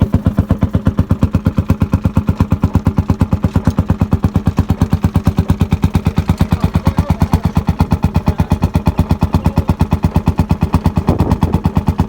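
HSCS single-cylinder hot-bulb tractor engine running steadily, its exhaust giving a rapid, even beat of sharp pops.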